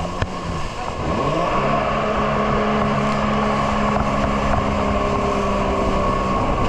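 Jet ski engine revving up about a second in, then running steadily at speed.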